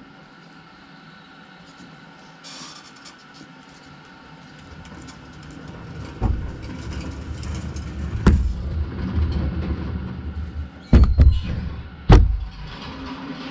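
Forklift working close by, heard from inside a truck cab: its engine grows louder as it carries a load past, with about five sharp knocks and bangs as the load is handled, the loudest near the end. A short hiss comes about two and a half seconds in.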